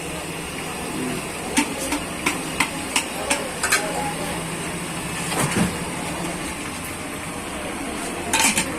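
A series of sharp metal knocks and taps from cooking utensils at a street food stall: about seven quick ones in two seconds, one more a little later and a short clatter near the end, over steady stall noise.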